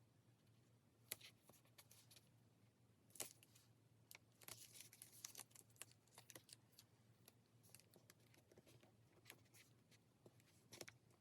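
Faint desk work with pen and paper: scattered light clicks and taps, with a brief scratchy rustle of paper about halfway through.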